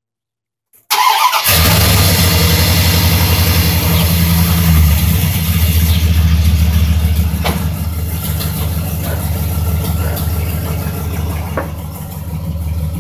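1998 Dodge Ram 1500's 5.9 Magnum V8, fitted with shorty headers, starting up about a second in after its oil change and then running steadily at idle. The sound gets a little quieter over the last few seconds.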